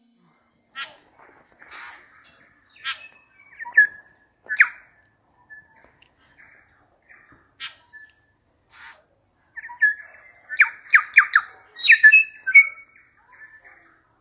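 Birds calling in the trees: scattered sharp clicks and squawks with short whistled notes, growing busier and louder about ten seconds in.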